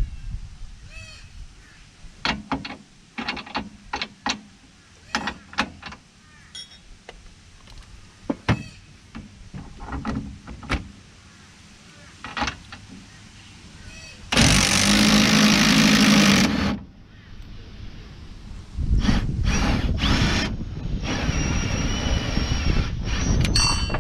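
Metal tools clinking and knocking, then an impact wrench (rattle gun) hammering for about two seconds while undoing a bolt. It runs again from about 19 seconds in, first in short spurts and then steadily.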